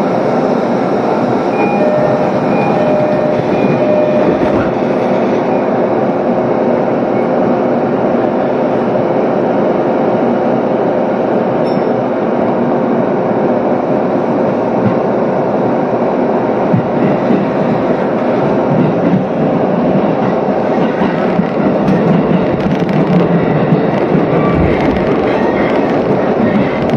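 Electric commuter train heard from inside the carriage, standing at a station with a steady hum and a few short beeps about two seconds in. It then pulls away and runs, with the wheels clattering over the rails in the last several seconds.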